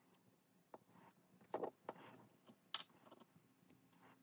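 Faint, scattered clicks and light taps of small metal parts of a Shimano XTR pedal axle being handled during bearing reassembly, the sharpest click about two-thirds of the way in.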